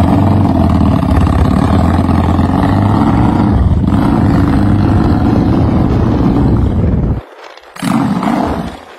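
Motorcycle engine running loud and steady under way. It cuts off suddenly about seven seconds in, and a brief burst of sound follows about a second later.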